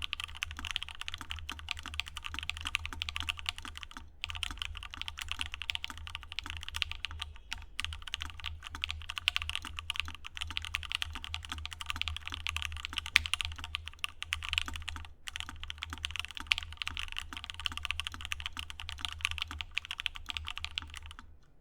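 Fast, continuous typing on a Freyr mechanical keyboard fitted with lubed and filmed JWK Banana Split linear switches on a full aluminum plate. The typing has brief pauses about four, seven and fifteen seconds in and stops just before the end.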